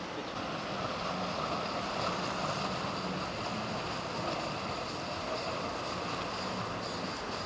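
Steady drone of motorboat engines mixed with the sound of waves and wake water, with some wind on the microphone.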